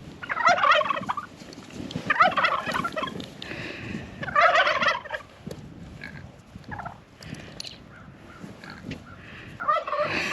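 Turkeys gobbling: three loud, rattling gobbles about two seconds apart, then quieter calls and another gobble near the end.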